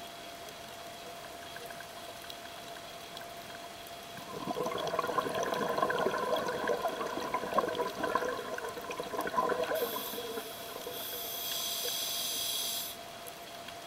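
Scuba diver breathing through a regulator, heard underwater: a gurgling rush of exhaled bubbles starting about four seconds in and lasting some five seconds, then a hissing inhale that cuts off about a second before the end. A faint steady tone runs underneath.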